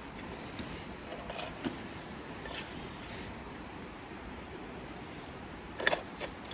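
Steady background hiss with a few scattered sharp clicks and knocks, the loudest a short double knock near the end.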